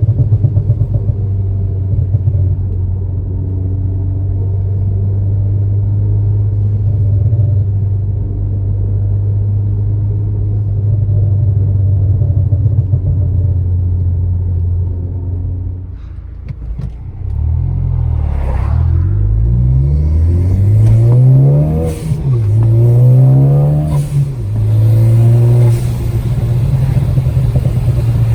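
Ford Focus ST's turbocharged four-cylinder through a Cobb exhaust with catless downpipe: a steady exhaust drone while cruising, then a little past halfway it accelerates through several gear changes, the note climbing and dropping at each shift, with a few sharp exhaust cracks from its pops-and-crackles tune, before settling back into a steady drone near the end.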